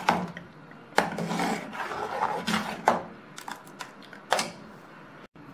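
Steel ladle stirring thick urad dal porridge in an aluminium pot, scraping along the pot with a few sharp knocks against its side; the stirring keeps the dal from forming lumps.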